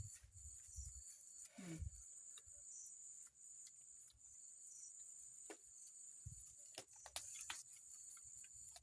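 Faint, steady high-pitched chirring of insects, with scattered small clicks and knocks and a short falling sound about one and a half seconds in.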